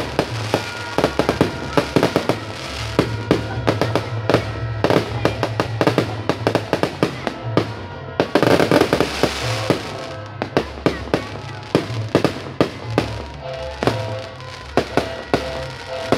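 Fireworks going off: a rapid, unbroken string of sharp bangs and crackles, with a dense burst of crackling about eight seconds in. Amplified music with a bass line plays underneath.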